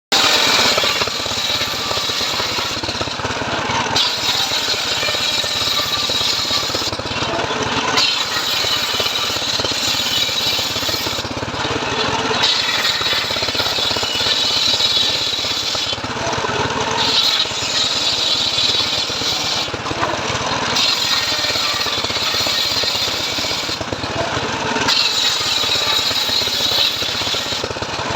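Homemade srekel sawing machine ripping teak timber: a loud, steady machine noise with a high cutting hiss that dips and returns about every four seconds.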